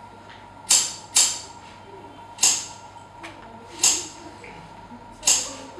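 Five bright percussion strikes, two close together and then about one every second and a half. Each dies away quickly, over a steady faint electrical hum.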